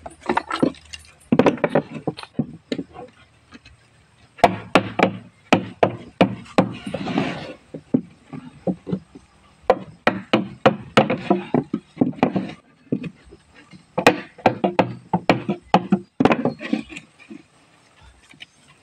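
Repeated sharp wooden knocks in several quick runs with short pauses between them: a plywood divider being knocked deeper into a plywood incubator box.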